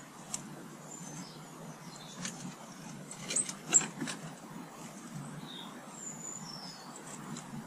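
Small garden birds giving short high chirps and a few falling whistled notes, with several sharp clicks, the loudest just before the middle. A low, steady rumble of distant traffic runs underneath.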